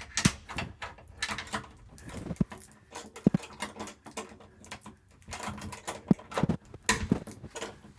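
Irregular clicks, scrapes and knocks of a key being worked in a door lock, with a few sharp louder clicks.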